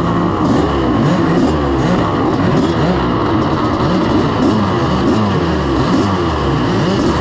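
1986 Honda CR500's single-cylinder two-stroke engine being ridden hard, its pitch rising and falling about twice a second as the throttle is worked on and off.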